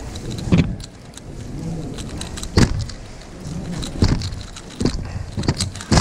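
Mini Valk 3 M speedcube being turned fast one-handed, a light plastic clicking and clattering broken by several sharp knocks. The last knock, just before the end, comes as the solved cube is set down on the mat and the hand slaps the stackmat timer to stop it.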